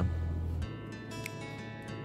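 Background music with guitar; a low hum underneath it cuts off about two-thirds of a second in.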